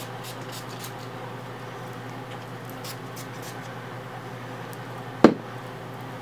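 A few faint, very short spritzes from a pump bottle of sea salt texturizing spray in the first few seconds, over a steady low hum, then a single sharp knock about five seconds in.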